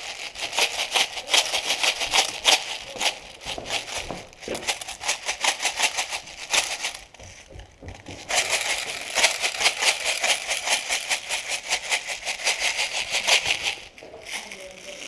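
Rapid automatic gunfire, long strings of sharp shots fired in quick succession, pausing for about a second around the middle and then firing again until near the end.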